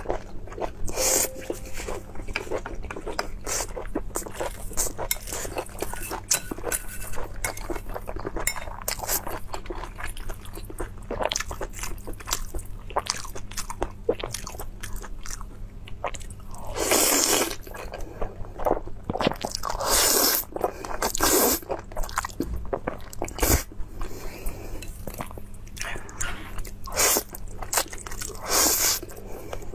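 Close-miked eating: steady wet chewing with many small clicks and mouth smacks, and in the second half several loud slurps of saucy noodles, each lasting under a second.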